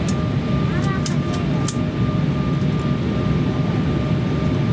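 Steady in-flight cabin noise of an Embraer 170 jet airliner on its approach: the deep roar of the wing-mounted turbofans and the airflow, with a thin steady whine. A few faint clicks and a short rising squeak come in the first two seconds.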